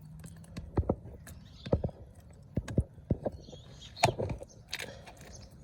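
A dog crunching and chewing boiled-egg shell, with irregular sharp cracks and clicks about a second apart.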